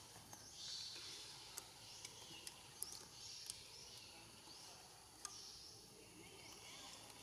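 Faint outdoor ambience with soft, high chirps from small wildlife recurring about once a second, and a few small clicks.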